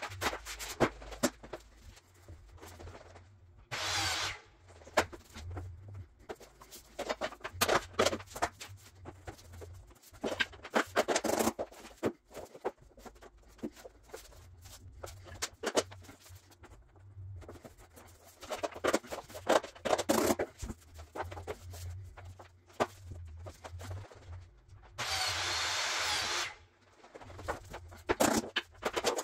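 Luxury vinyl planks being handled, laid and fitted together on a subfloor: a string of clicks, knocks and taps. Twice there is a stretch of steady rasping noise, a short one about four seconds in and a longer one of about two seconds near the end.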